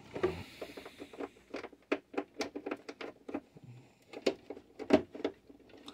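Hard plastic playset pieces handled and fitted together: a run of irregular small clicks and taps, with a few sharper knocks as the parts are pushed into place.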